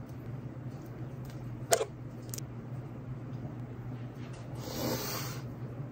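Small handling sounds of makeup tools (an eyelash curler, then a mascara wand and tube) over a low steady hum. There is one sharp click about a second and a half in, a fainter tick just after it, and a short rustle near the end.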